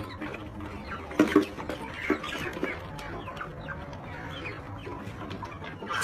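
A flock of hens clucking and calling, many short overlapping calls throughout, with two louder short sounds a little over a second in.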